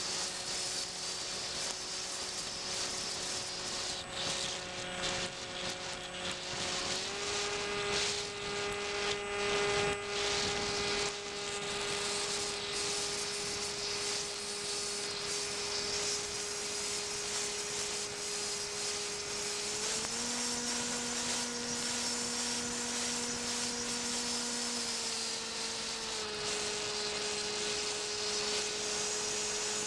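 A radio-controlled model aircraft's motor heard from on board: a steady whine that steps up in pitch about seven seconds in and again about twenty seconds in, then drops back a little some five seconds later as the motor speed changes. A steady high hiss runs under it.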